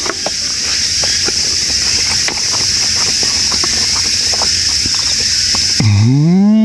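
Insects buzzing steadily in a summer forest, with faint clicks and taps from eating with a wooden spoon off a wooden plate. Near the end a man gives a closed-mouth 'mmm' that rises in pitch, savouring the food.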